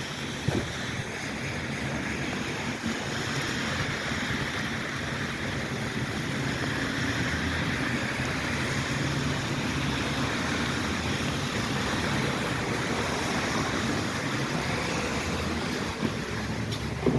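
Steady noise of a car driving on a wet road: a low engine hum under an even hiss of tyres on wet pavement and rain.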